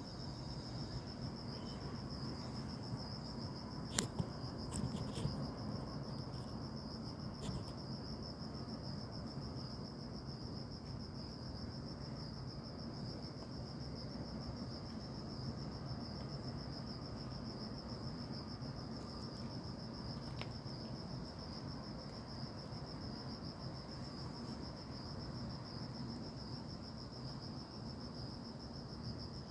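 Steady high-pitched chorus of forest insects, a continuous even trill. A few sharp clicks come about four to five seconds in, and single ones come later.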